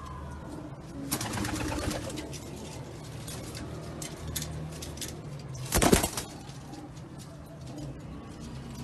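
Iranian high-flying pigeons cooing low and steadily in the loft. Short bursts of wing flapping come about a second in and, loudest, around six seconds in.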